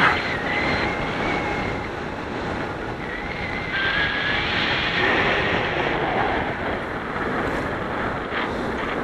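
Steady rush of wind buffeting the microphone as the camera moves fast through open air, with faint thin whistling tones that come and go.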